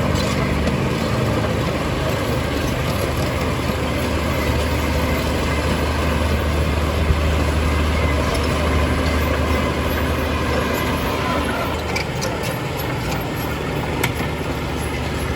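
Heavy diesel earthmoving machinery running steadily with a deep engine hum, with a few sharp knocks near the end.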